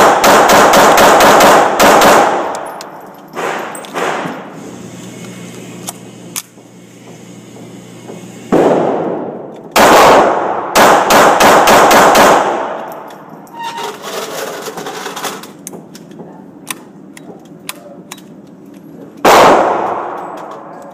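Pistol shots at a shooting range, each with an echoing tail. A rapid string comes in the first two seconds, then a few single shots, another rapid string from about ten to twelve seconds, and a last shot near the end.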